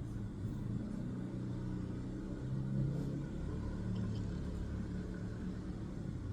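Steady low rumble of a running vehicle engine, with a low hum whose pitch wavers slightly.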